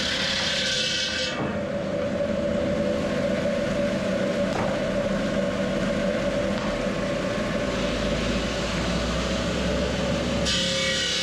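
A machine running steadily, with a constant hum over a noisy whir. The sound changes abruptly about a second in and again near the end.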